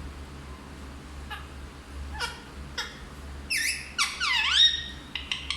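Indian ringneck parrot squeaking: a few short, sharp downward chirps, then from about three and a half seconds in a louder run of shrill calls that swoop down and up in pitch.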